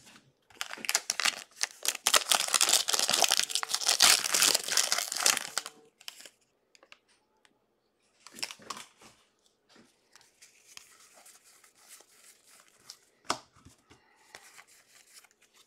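Foil wrapper of a trading-card pack torn open and crinkled for about five seconds, then soft sliding and ticking of cards being flipped through by hand, with one sharp click near the end.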